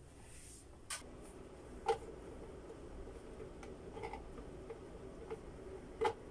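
Scattered light clicks and taps of painted 3D-printed plastic parts being handled and fitted together, about four in all, the loudest about two seconds in.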